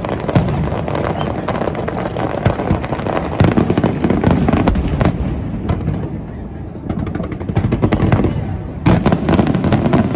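Fireworks display: shells bursting in quick succession with booms and crackle, a rapid crackling run about seven seconds in, then a heavy burst of bangs about a second later.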